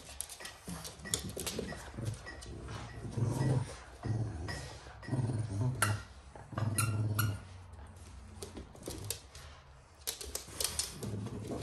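Two French bulldogs growling in short low rumbles, over and over, while tugging a toy between them, with scattered sharp clicks and scuffles.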